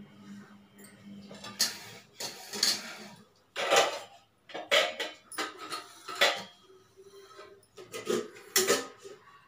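Metal kitchen pots and vessels clanking and clattering as they are handled and set down, in a series of sharp knocks with a short ring after each.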